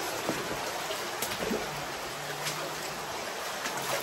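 Underground cave stream running steadily, a continuous hiss of flowing water, with a few faint light clicks or drips.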